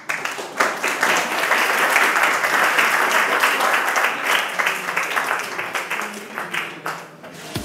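Audience applauding: a dense run of clapping that builds quickly, holds steady, then thins out and fades near the end.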